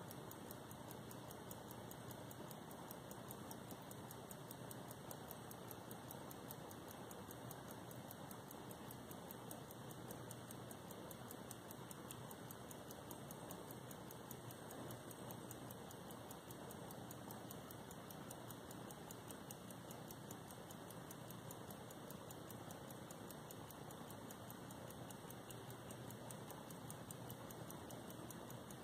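Circa-1865 key-wind gold pocket watch ticking faintly, its escapement beating in a fast, even rhythm over a steady hiss.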